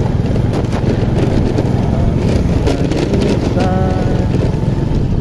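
Vehicle in motion: a steady, loud low rumble of engine and road noise.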